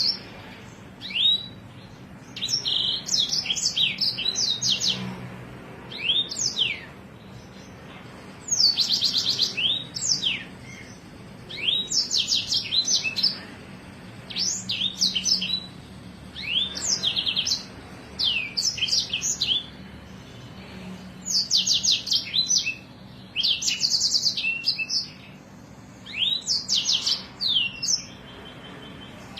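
A songbird singing in about a dozen short bursts of fast, high trills and sharp downward-swept notes, with brief pauses between phrases. A faint low hum runs underneath.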